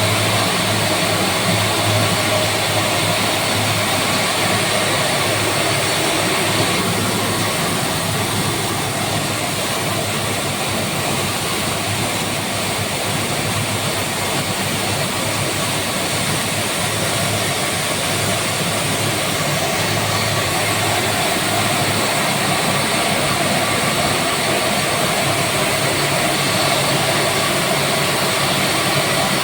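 A 22 kW (30 HP) fixed-speed screw air compressor running steadily under power: a constant machine noise with a low hum, easing slightly in the upper range about seven seconds in.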